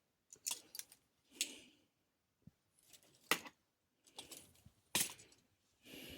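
Small metal and plastic toy-train pieces clicking and clinking as they are rummaged through in a bin, with short rustles between a handful of sharp clicks.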